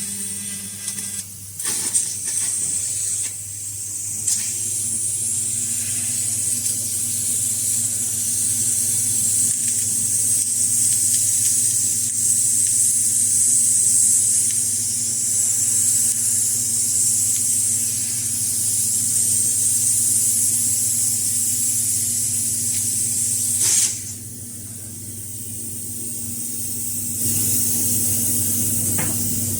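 Assist gas hissing steadily through the cutting head of a 12 kW fiber laser cutting machine as it cuts sheet metal, over a steady low machine hum. The hiss breaks off briefly twice early on and fades for about three seconds near the end before resuming.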